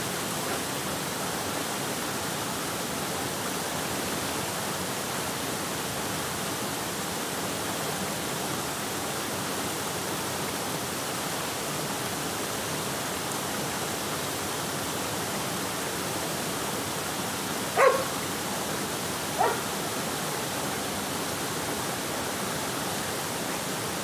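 Steady rush of a waterfall cascading over rocks into a pool. About three quarters of the way through, a dog barks twice, about a second and a half apart.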